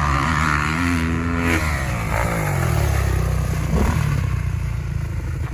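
An engine running and revving, its pitch rising and shifting in the first couple of seconds, then running on steadily.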